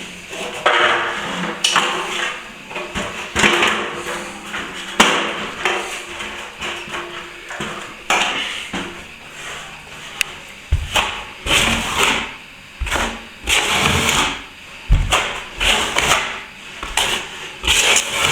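Steel plastering tool scraping over setting plaster on a ceiling joint repair in a run of irregular short strokes, with a few dull knocks in the second half.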